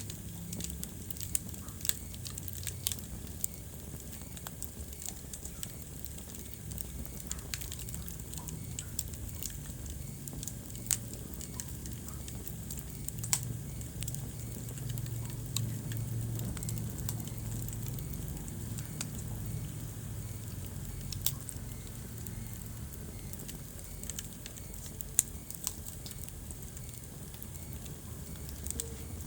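Wood fire burning in a fireplace: irregular sharp crackles and pops over a steady low rumble of the flames, the rumble a little stronger midway.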